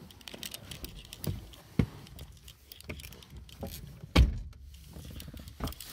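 Clicks, knocks and rustling of people settling into a car, then a car door shutting with a heavy thud about four seconds in.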